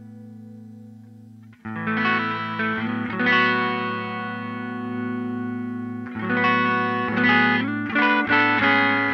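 Electric guitar played through a Two notes Torpedo C.A.B. M+ cabinet-simulator pedal, using its built-in preamp and a simulated RD112 1x12 cabinet. A held chord fades out, a new chord is struck about a second and a half in and rings on, and several more chords are struck in the last few seconds.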